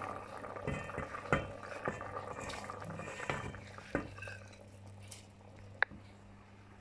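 Wooden spatula knocking and scraping against a terracotta bowl as basmati rice is pushed off into a pot of boiling water, with wet plops and splashes of the rice landing. The knocks come roughly once a second early on, and there is one sharp click near the end.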